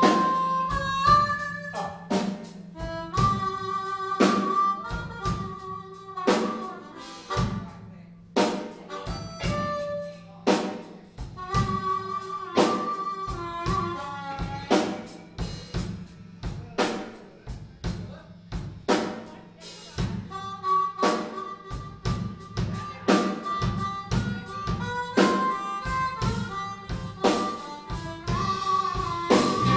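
Live blues band playing a slow blues. A harmonica cupped against the vocal microphone plays held and sliding notes as the lead, over drum kit, electric guitar and bass.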